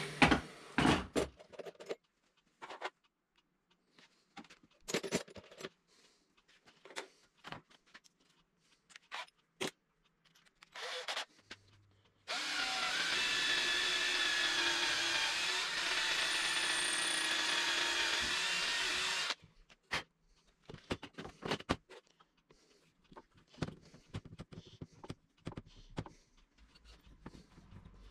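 Cordless drill boring into wood, a steady whine that starts about twelve seconds in and runs for about seven seconds before stopping abruptly. Scattered knocks and clicks of wood and tools being handled come before and after it.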